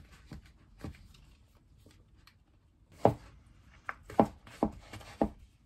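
Straps and buckles of Dr. Martens Voss Quad platform sandals being fastened by hand: a handful of short clicks and taps, one about a second in and a quick cluster of five or six in the second half.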